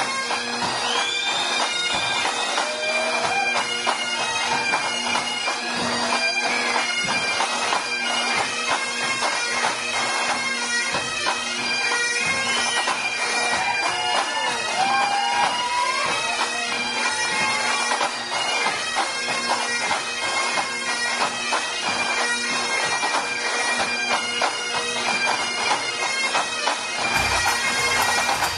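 Highland bagpipe band playing: the pipes' steady drones sound under the chanter melody.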